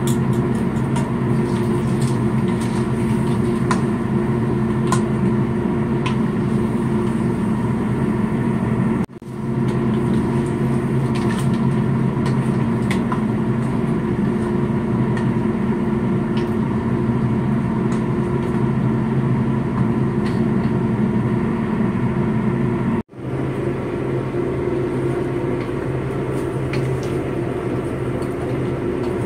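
A steady machine hum runs under the cooking, with scattered light clicks and scrapes as a ladle stirs beef and daikon in a wok. The hum breaks off briefly twice.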